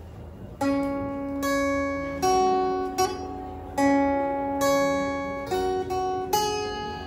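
Acoustic guitar playing a song's intro: chords plucked and left to ring, starting about half a second in, with a new chord struck roughly every second.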